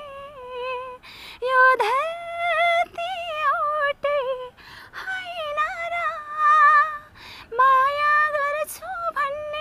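A woman singing a Nepali song unaccompanied, in four phrases of long drawn-out notes with vibrato and pitch bends, with short pauses for breath between them.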